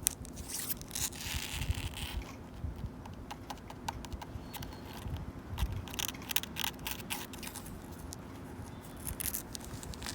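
Long natural fingernails scratching and clawing at a wooden bench, in clusters of short scratchy strokes.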